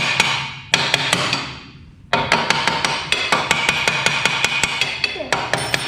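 Hammer striking steel parts of a go-kart-sized rear axle assembly in quick runs of several blows a second, each with a metallic ring, broken by a couple of short pauses.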